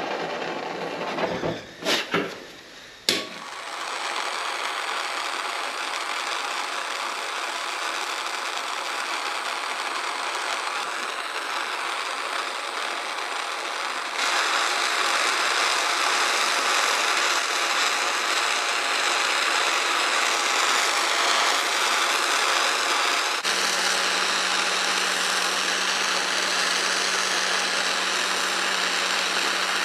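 Handheld gas torch burning with a steady hiss as its flame heats a titanium exhaust header pipe to colour it. A few sharp clicks come about two to three seconds in.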